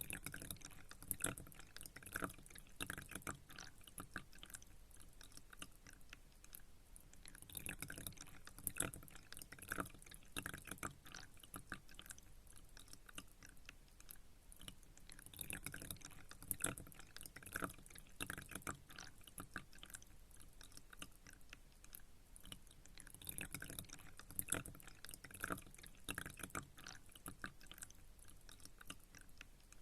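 Pond water dripping and trickling: a dense run of small drips and splashes that swells and fades about every eight seconds.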